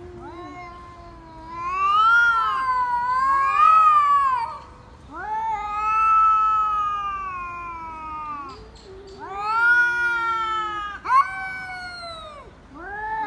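Two domestic cats caterwauling at each other in a face-off: long, drawn-out yowls that waver up and down in pitch, several in a row with short breaks between them, the sound of a territorial standoff.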